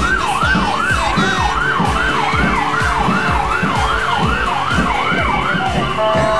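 Police car siren sounding a fast up-and-down wail, about two and a half sweeps a second, over music with a steady bass beat. The siren stops near the end.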